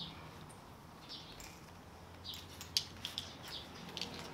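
A dog's harness being fastened: a quick run of sharp clicks in the second half, the loudest a little before three seconds in, over faint high chirps of small birds.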